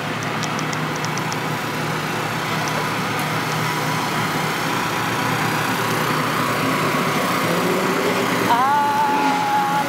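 Steady din of vehicles and engines running, with no single event standing out.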